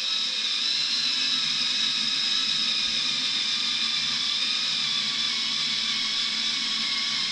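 Small handheld rotary tool with a cutter bit running at a steady speed with a high whine, used to grind out air-bubble pits and voids in cured epoxy resin around wood.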